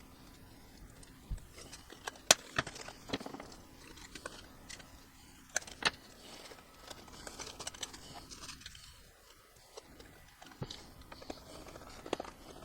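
Small sharp clicks and taps of HO scale model freight car parts being handled as metal wheelsets are snapped into a truck. The clicks are irregular, with a few louder ones in the first half.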